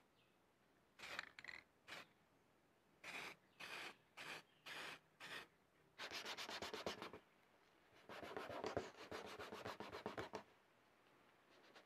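Aerosol spray-paint can giving a series of short hisses as a second coat of black paint goes onto a car bumper. From about six seconds in, 800-grit sandpaper rubbed back and forth by hand over the painted plastic bumper, in two spells of quick strokes, to level the new paint with the original.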